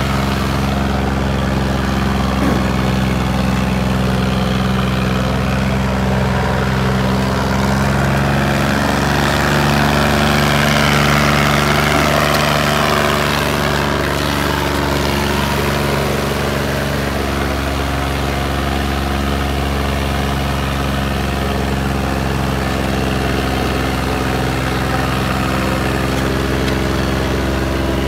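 Sonalika DI 35 tractor's diesel engine running hard at a steady speed under heavy load while dragging a disc harrow through soft soil.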